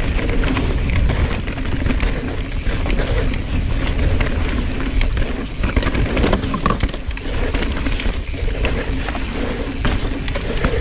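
Mountain bike descending a rough trail: a steady low rumble of tyres over rocks and roots, with many irregular knocks and rattles from the bike.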